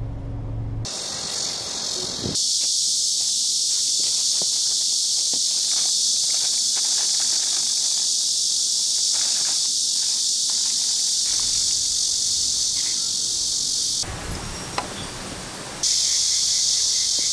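Loud, steady chorus of cicadas, a dense high-pitched buzz. It starts about two seconds in, breaks off briefly a few seconds before the end, and then returns.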